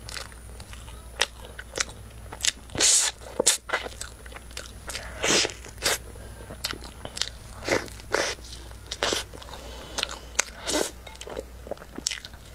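Close-miked eating sounds: biting into and chewing a heated chocolate-coated 'dirty bun' with a runny cream filling, with irregular sharp wet smacks and clicks of lips and mouth. There are a few louder bites about three and five seconds in.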